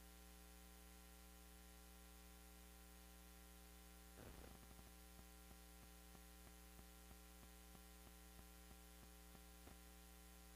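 Near silence: a steady electrical hum, with faint soft ticks starting about four seconds in.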